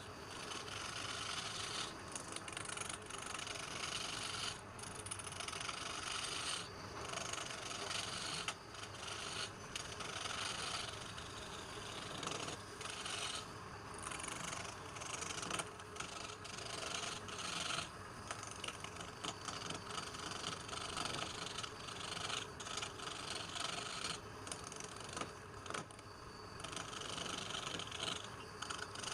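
A tool scraping and rasping against wood, continuous and scratchy with frequent short breaks.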